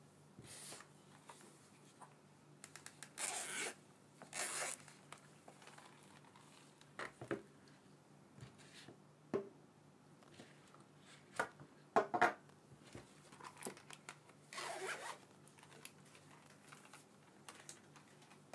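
Zipper of a small zippered lens carrying case being pulled in a few short zip strokes, with scattered clicks and taps of small items being handled and set down on a table.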